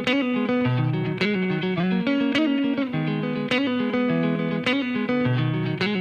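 Background music: a rock song's guitar intro, a picked guitar riff repeating with a strong note about every second, before the drums come in.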